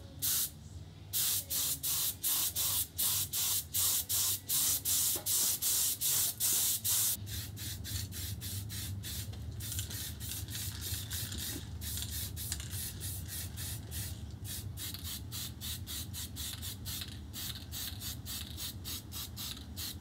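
Spray paint hissing in rapid short bursts, about three a second, first from a compressed-air paint spray gun, then as quieter, closer-spaced bursts from aerosol spray cans, over a low steady hum.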